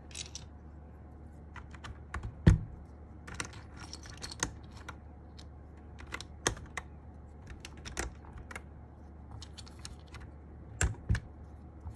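Plastic Cherry-profile keycaps being fitted by hand onto the switches of a mechanical keyboard: irregular clicks and clacks, the loudest about two and a half seconds in and a quick pair near the end.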